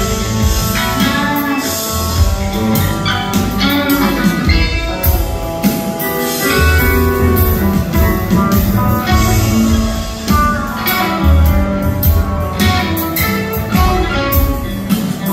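A band playing live music in a concert hall, heard from the audience: guitar over upright bass, piano and drums.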